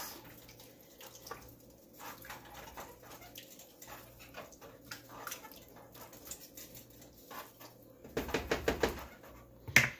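Spoon stirring a thick, chunky soup in a large metal stockpot: soft, scattered scraping and stirring sounds, louder for about a second near the end, then a single sharp knock.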